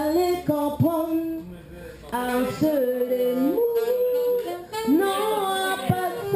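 A woman singing live into a stage microphone, holding long notes and sliding between pitches, with a band faint beneath her voice.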